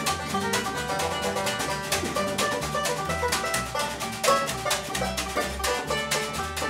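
Banjo picking a quick run of notes over upright double bass and a snare drum keeping a steady beat: an acoustic trio playing an instrumental break with no singing.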